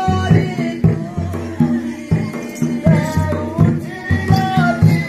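Live folk music: a two-headed barrel drum (dhol) beaten in a quick steady rhythm, about three strokes a second, under a wavering melody line.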